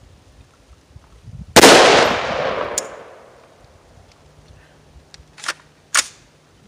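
A single 5.56 shot from a PSA Freedom 10.5-inch AR-15 pistol, followed by a long echo that fades over a second and a half. About four seconds later come two sharp metallic clacks half a second apart as the rifle's action is worked by hand, during a session plagued by feeding stoppages.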